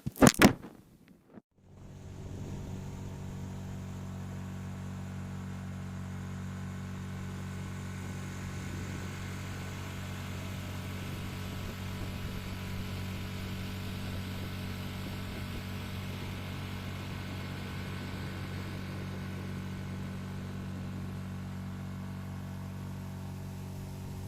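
A steady low hum made of several evenly spaced tones with a light hiss over it, starting abruptly about two seconds in after a brief sharp sound and holding level throughout.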